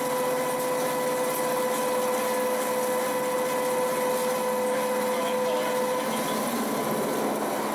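CNC milling cutter cutting a metal block under flood coolant: steady machining noise with a high, steady whine that drops out about six seconds in.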